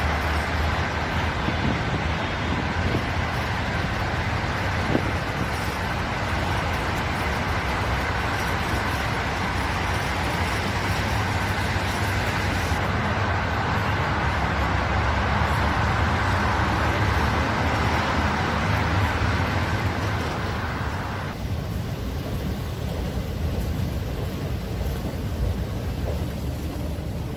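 Steady traffic noise from a busy multi-lane road, cars and buses passing, which turns duller and quieter about three quarters of the way through.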